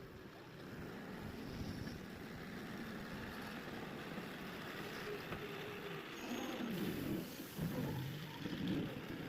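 Mahindra backhoe loader's diesel engine running steadily, swelling louder a few times near the end.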